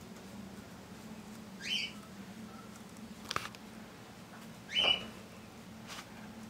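Two short squeaks rising in pitch, about three seconds apart, from a small animal, with a sharp click between them.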